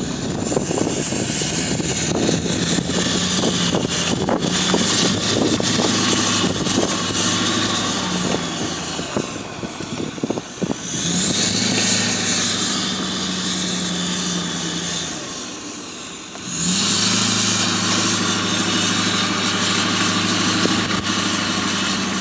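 H&S-tuned 6.4 Powerstroke diesel V8 in a 2008 Ford F-350 with a 4-inch exhaust, pulling a bass boat on its trailer up a launch ramp. It gives a deep, steady exhaust note with a high whistle above it. The note eases off twice, once about halfway and once near three-quarters, and each time picks back up with a rising whistle.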